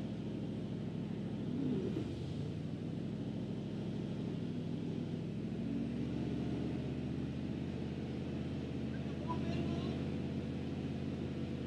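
1976 Chevrolet C65 log truck's engine running steadily at low speed. It picks up twice as the truck's log loader is worked.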